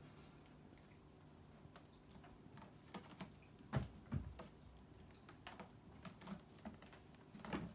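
Scattered soft clicks and scratches of cats' claws and paws on a carpeted cat tower with sisal-wrapped posts as a black cat climbs, with a couple of dull thumps about four seconds in.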